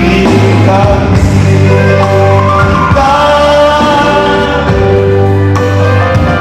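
A man singing a song into a microphone, amplified through a hall PA over backing music with sustained bass notes.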